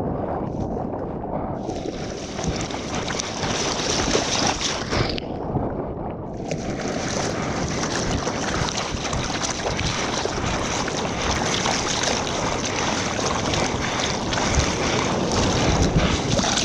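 Ocean water rushing and splashing with wind buffeting a surfer's action camera; the sound turns dull at the start and again about five seconds in, then the brighter hiss of the water comes back.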